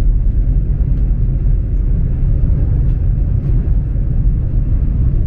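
Steady low rumble of a passenger train running at speed, heard from inside the carriage, with a few faint clicks.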